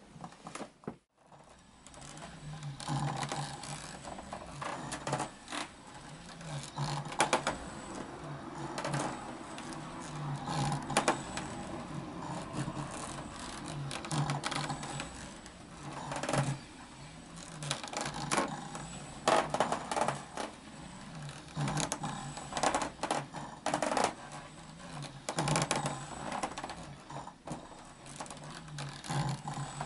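Ninebot One S2 electric unicycle's hub motor whirring in short spurts every second or two as the wheel rocks back and forth, with clicks and knocks mixed in.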